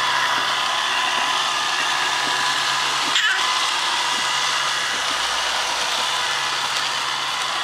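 Roomba robot vacuum running, a steady motor and brush whir with a high whine. One brief knock about three seconds in.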